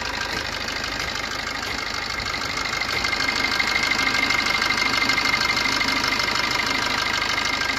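Maruti Ritz engine idling steadily after a new timing chain has been fitted, running without the earlier chain rattle, with a faint steady high whine. It gets a little louder about three seconds in, then eases near the end.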